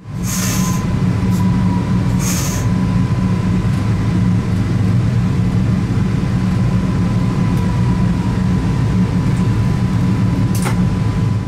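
Cab sound of a 45WE (Stadler FLIRT) electric multiple unit: a steady low hum with a thin, steady high tone over it. Two short hisses come in the first few seconds, and a sharp click near the end.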